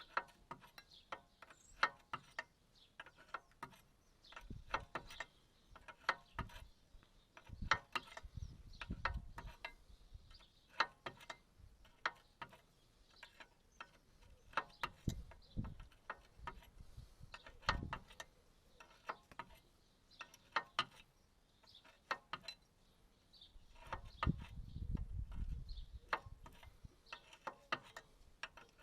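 Ratchet spanner clicking in short, irregular runs as metal is worked on a mini digger's track gear, with a couple of longer low rumbling stretches.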